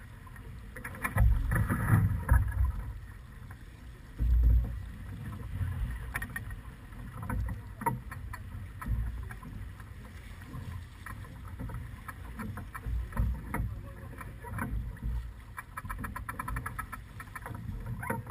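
Sailing yacht under way: wind buffeting the microphone in gusts, strongest about a second in and again around four seconds in, over water washing along the hull. Scattered short clicks and knocks come from the deck gear.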